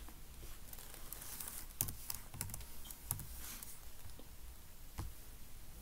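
Faint, irregular keystrokes on a computer keyboard as a Bible verse reference is typed into a search box.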